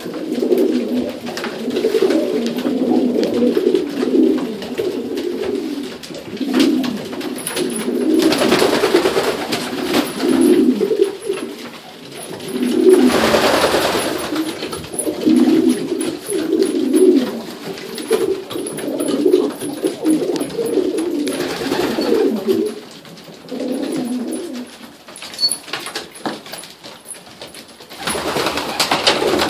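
Domestic pigeons cooing over and over, several birds overlapping. A few short bursts of rustling noise rise above the cooing, about four times.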